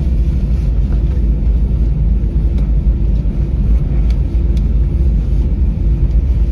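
Steady low rumble inside the cabin of an Airbus A320-family airliner taxiing after landing: engines at idle and wheels rolling on the taxiway, with a faint steady hum and a few faint ticks.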